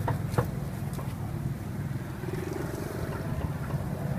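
Low, steady engine rumble of nearby street traffic, with a couple of sharp clicks in the first half second.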